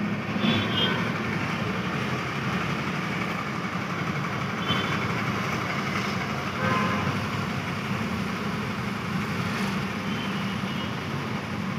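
Steady road and engine noise inside a Hyundai i20's cabin as it drives through traffic, with a few short horn toots from other vehicles.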